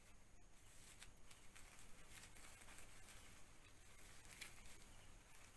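Faint crinkling and rustling of a disposable diaper being handled and fitted, in short soft crackles, the clearest about four and a half seconds in.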